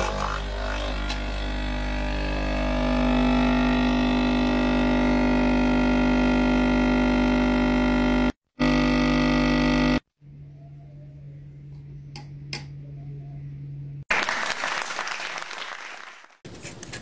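Capsule coffee machine's pump humming loudly as it brews into a mug, its tone rising in the first couple of seconds, with a short break just past eight seconds; it stops at about ten seconds. A quieter low hum with a couple of clicks follows, then a noisy hiss near the end.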